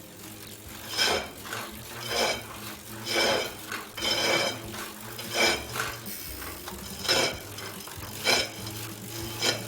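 Tacx Neo Series trainer's motor brake giving a ringing metallic scrape-and-clink about once a second while being pedalled. It is the metal noise that may point to a problem with the hub axle in the centre of the motor brake.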